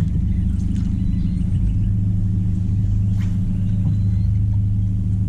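Steady low hum of a bass boat's bow-mounted electric trolling motor running as the boat eases along.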